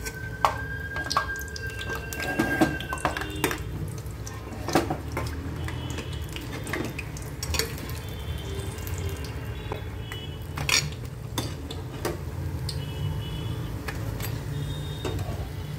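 Perforated steel slotted spoon clinking and scraping against a frying pan and a steel plate as fried battered brinjal slices are lifted out of hot oil. There are scattered sharp clinks over a low steady hum.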